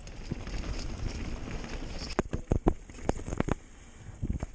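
Mountain bike riding down a dirt trail: tyres rolling with a steady low rumble, and a run of sharp clacks and knocks from the bike jolting over bumps from about two seconds in, with a couple more near the end.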